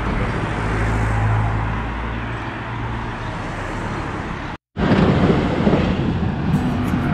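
Road traffic noise of vehicles passing, with a steady engine hum for the first few seconds. The sound drops out briefly past the middle and comes back louder and rougher.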